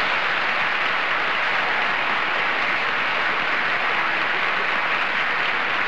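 Studio audience applauding, a steady round of clapping.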